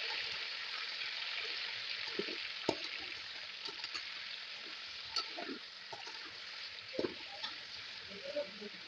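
Chicken frying in oil in a karahi, a steady sizzle that slowly grows quieter, with a few short knocks of a spoon stirring against the pan.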